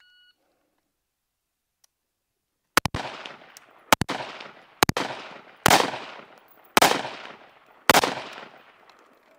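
A shot timer beeps briefly, then an AR-15 rifle fires a string of about six shots, roughly a second apart, each followed by a ringing echo.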